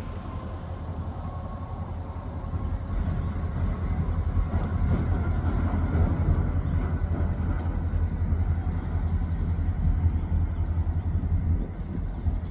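Steady low engine rumble, getting a little louder about two to three seconds in.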